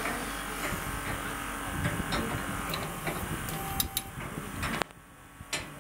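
Hydraulic torque wrench tightening a high-strength friction-grip bolt to its preset first-stage torque: a mechanical running noise with scattered sharp ratchet clicks. It drops off abruptly near the end, leaving one last click.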